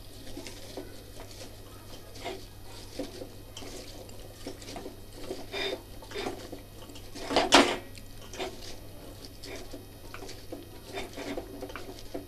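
A hand kneading and squeezing wet, cut water lily stems in a steel bowl: irregular squelching and rustling of the stems against each other and the bowl, with one louder burst about seven and a half seconds in.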